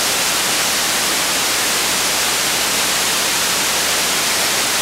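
Loud, steady hiss like white noise, spread evenly from low to high pitch, with nothing else heard: electronic noise in the audio chain rather than a sound in the room.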